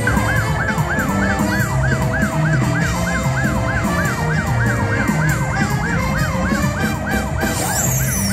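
Slot machine sound effect: a fast, siren-like electronic whoop that rises and falls about three times a second, over the machine's low musical backing.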